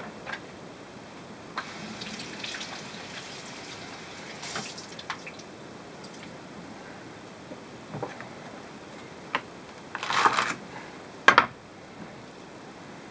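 Kitchen handling sounds: water dripping and splashing, then a short louder rustle and two sharp knocks near the end as celery stalks are set down on a wooden cutting board.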